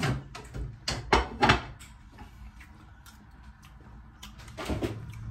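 A metal spoon knocking and scraping in a disposable aluminium foil pan of wet cornmeal dressing: a few short clatters in the first second and a half, then quieter. A low steady hum starts near the end.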